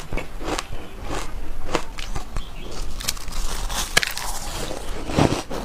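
Soft shaved ice being chewed close to the microphone: repeated crunches at about one to two a second, with a sharper crunch about four seconds in.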